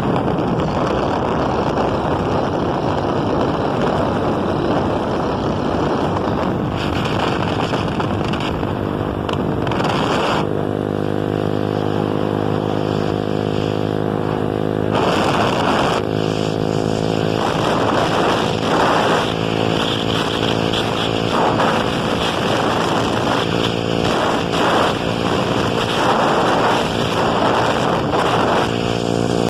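Boat engine running steadily under wind and water rush. About ten seconds in its steady hum comes through clearly, and later brief rushing swells come and go over it.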